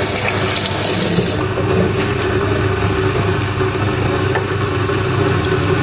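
A steady machine hum, with a brief hiss over it during the first second or so.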